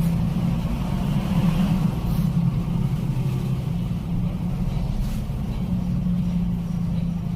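Steady low mechanical hum of a running motor, even throughout, with no distinct events.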